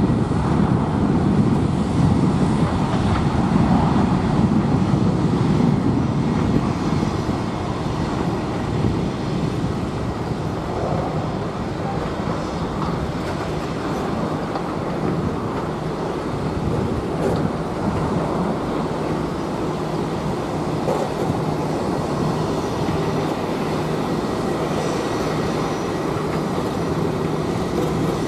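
Airbus A321 jet engines at taxi power as the airliner rolls past: a steady low rumble with a faint steady whine above it, a little louder in the first few seconds.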